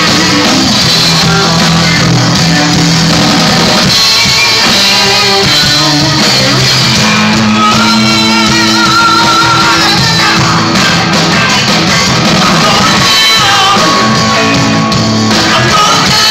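Live rock band playing loud, with a singer's voice over the band; the singing wavers on held notes in the middle.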